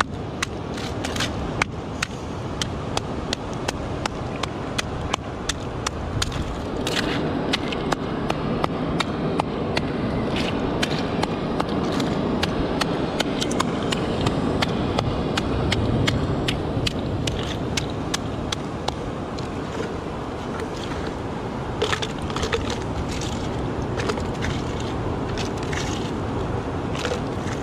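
A hand-held stone knocking and scraping against rock and mussel shells: sharp, irregular knocks, a few a second, over a steady rushing background.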